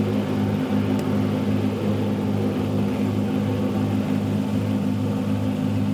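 Motor yacht's engines running steadily under way, a low even drone.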